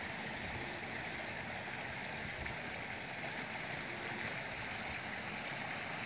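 Mountain stream running over rocks: a steady, even rush of water.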